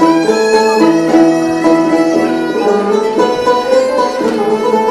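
Bağlama (long-necked Turkish saz) played with a plectrum: a Turkish folk melody of quick plucked notes, some held and ringing.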